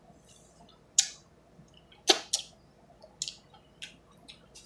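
Scattered wet mouth clicks and lip smacks, about half a dozen, the loudest about two seconds in.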